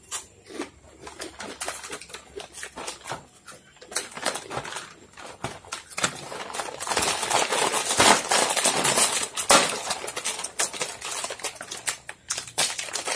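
Foil snack packets crinkling and being torn open, with potato chips crunching as they are eaten: scattered sharp crackles at first, then dense, continuous crinkling from about halfway through until near the end.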